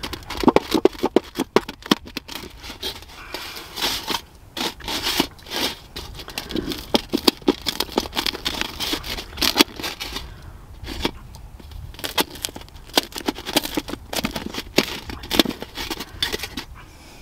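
Knife blade cutting through a crisp pizza base on a metal baking tray: a dense, irregular run of crunching crackles and sharp clicks.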